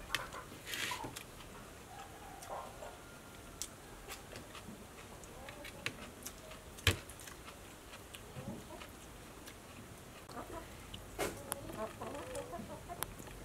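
Chickens clucking on and off, with a few sharp clicks; the loudest is a single click about seven seconds in.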